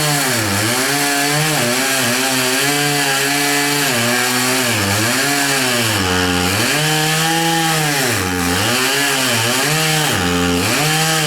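Chainsaw engine running loud and steady, its pitch dropping and recovering over and over, about once every second or so, as the chain bogs down in wood and frees again during cutting.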